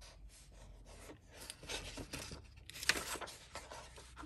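Paper pages of a paperback coloring book rustling and swishing as they are turned by hand, with a sharper page swish about three seconds in.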